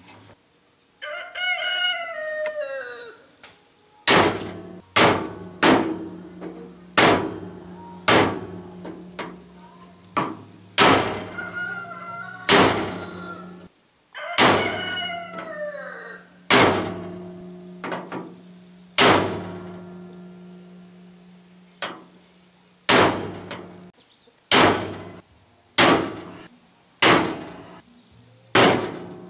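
Hammer blows on a wooden stick braced against a bent chrome car grille, knocking the metal back into line: a series of sharp strikes with a short ring, a second or two apart and coming faster near the end. A rooster crows three times, once near the start and twice around the middle.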